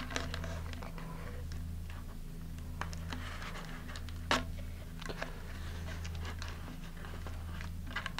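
Blue painter's masking tape being handled and pressed around a model rocket body tube: faint rustles and small ticks, with one sharper click about four seconds in, over a steady low hum.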